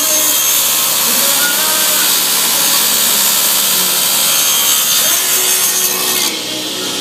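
Table saw running and cutting through a wooden board, a steady loud whine of the blade in the wood; the cut ends and the high sound drops away about six seconds in.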